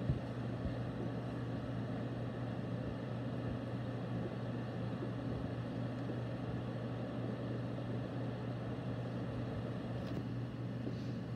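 Steady low mechanical hum with a faint hiss and no distinct events: a room's background machine noise.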